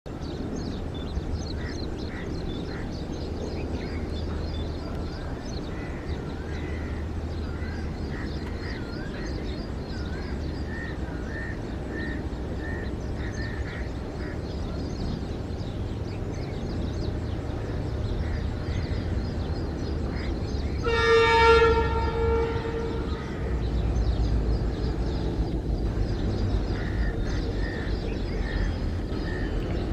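Twin EMD diesel locomotives (WDG-4 and WDG-4D, two-stroke EMD 710 engines) humming with a steady low drone as they haul a freight train toward the listener, the drone growing louder in the last few seconds. One horn blast of about a second and a half comes about two-thirds of the way through.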